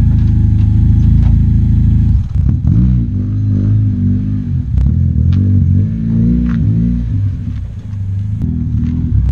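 Exhaust of a Honda Civic hatchback with a swapped-in K24 2.4-litre four-cylinder engine, running steadily and then revved in a series of blips from about two seconds in.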